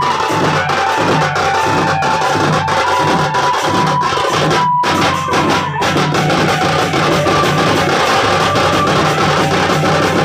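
Gadwa baja drum group playing: several two-headed drums beaten with sticks in a fast, driving rhythm, with a high held melody line over the drumming. The sound cuts out briefly a little before halfway through.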